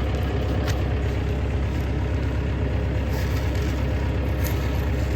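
An engine idling steadily, with a couple of faint clicks over it.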